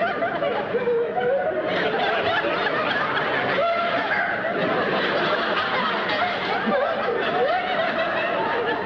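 Studio audience laughing without a break, many voices overlapping at a steady level.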